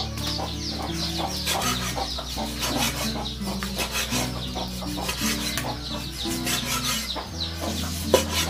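Chickens clucking and chirping in quick short calls, over background music with low held notes.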